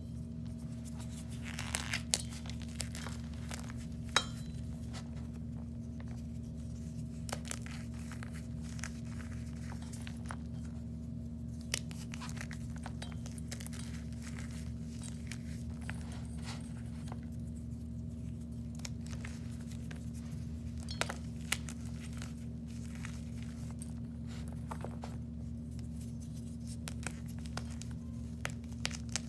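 Irregular crinkling, clicking and tapping from objects handled close to the microphone, with a few sharper clicks, over a steady low electrical hum.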